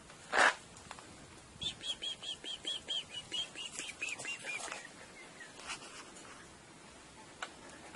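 A songbird singing a fast run of about fifteen repeated high notes, a little lower toward the end, lasting about three seconds. It is preceded by a short loud noise burst about half a second in.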